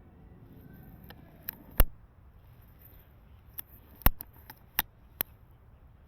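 Silverback SRS bolt-action airsoft sniper rifle, a string of sharp mechanical clicks and clacks: a loud one about two seconds in and a cluster of several more between three and a half and five seconds in.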